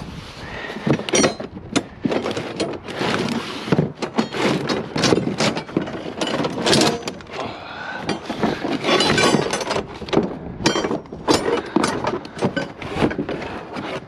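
Scrap metal and debris clanking and clattering as it is rummaged through and moved in a dumpster: a dense, irregular run of knocks, scrapes and rattles.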